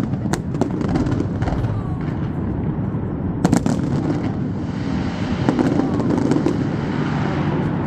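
Fireworks bursting over a crowd: several sharp bangs in the first second and a half, then the loudest double bang about three and a half seconds in, with steady crowd chatter underneath.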